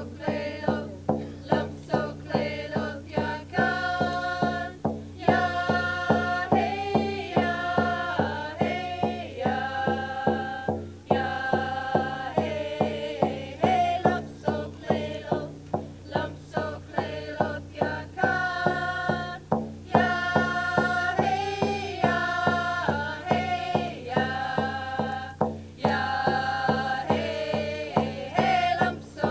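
A group singing a traditional Northwest Coast First Nations song in unison over a steady drumbeat of about two strokes a second.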